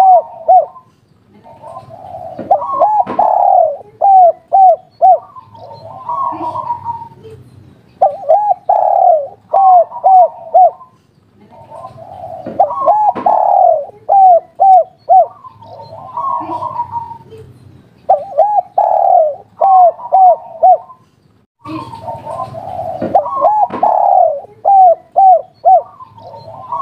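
Spotted dove cooing its 'kuk 3' song: repeated phrases of several quick rising-and-falling coos, about one phrase every four to five seconds.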